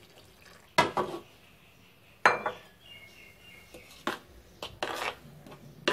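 A glass bowl and a metal spoon clinking against a mixing bowl while water is stirred into flour: about six sharp clinks, one followed by a brief ringing tone.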